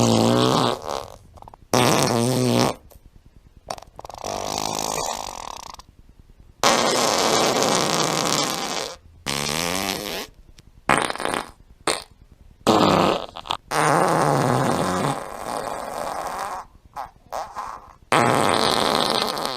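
A string of about a dozen fart sound effects, one after another with short gaps. Some have a rasping pitch that slides up and down, others are noisier and sputtery, and the longest lasts two to three seconds.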